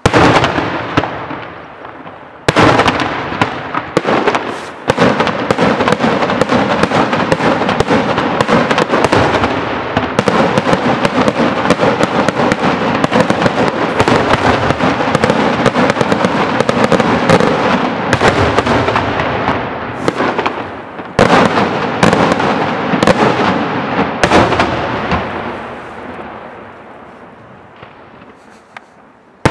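Daytime fireworks display: a dense, continuous barrage of rapid bangs and crackling reports from shells bursting overhead. Sharp opening blasts come at the start and about 2.5 and 5 seconds in, and the barrage fades away over the last few seconds.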